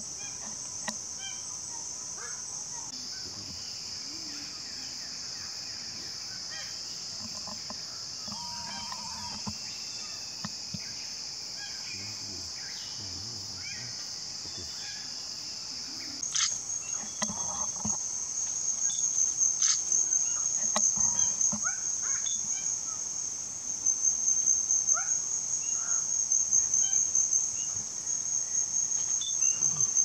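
A steady, high-pitched chorus of forest insects, which grows louder and takes on a fast pulsing rhythm about halfway through.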